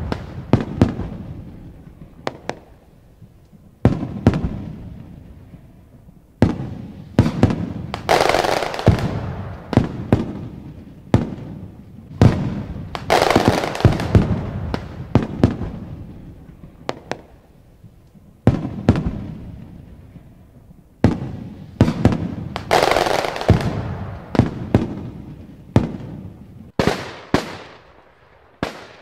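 Aerial firework shells bursting one after another at irregular intervals, each a sharp bang that dies away in a rolling rumble over a second or two, with several bursts coming in quick clusters.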